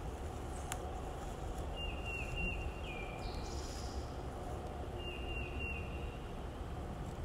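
A songbird singing a short phrase of four or five quick, repeated high notes, twice, over a steady low background rush; a single sharp click about a second in.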